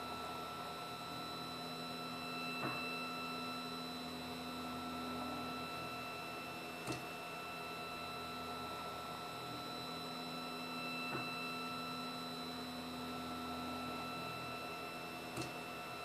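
3D printer's stepper motors and fan running through a laser-engraving job: a steady hum and whine with several held tones, and a short click about every four seconds as each horizontal raster pass ends and reverses.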